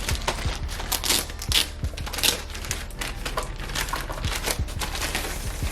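Plastic packaging crinkling and rustling, with scattered irregular clicks and a few louder crackles in the first half, as the laptop's charger is unwrapped.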